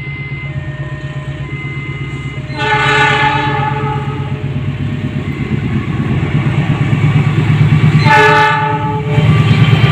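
Single-tone horn of diesel-electric locomotive CC 201 92 12, one long blast about two and a half seconds in and a shorter one near the end. Under the horn, the steady throb of the passing train grows louder throughout.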